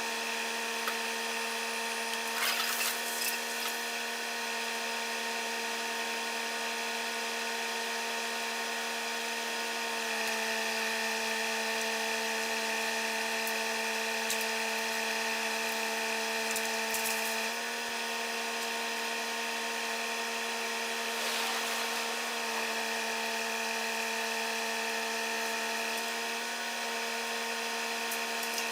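Two-stroke chainsaw held at high revs through a cut, one steady buzzing note. Its pitch dips slightly about ten seconds in and comes back up a few seconds later. A few short sharp cracks sound about two to three seconds in.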